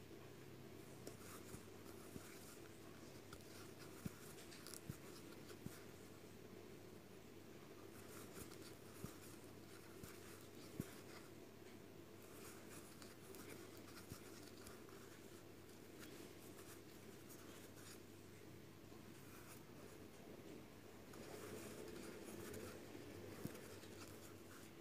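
Near silence: faint scratchy rubbing and a few light ticks of a metal crochet hook drawing white yarn through stitches, over a low steady room hum.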